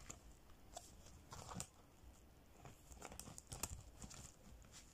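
Faint rustling and crinkling of paper envelopes being leafed through by hand in a ring binder, with a few light clicks scattered through.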